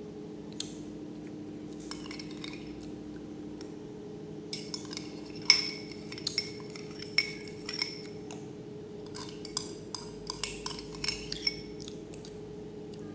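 Metal spoon clinking and scraping against a drinking glass: a run of sharp, ringing clinks in two clusters, the loudest about five and a half seconds in.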